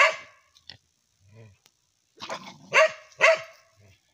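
Dog barking in short sharp barks: one right at the start, then a quick run of two or three barks about three seconds in.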